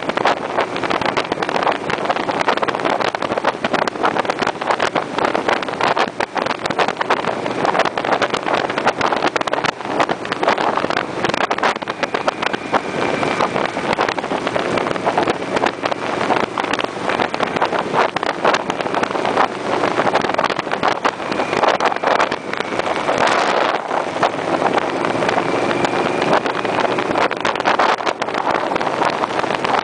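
Motorcycle at road speed: wind rushing and buffeting over the camera microphone, with the engine running underneath. A brief louder swell comes about three-quarters of the way in.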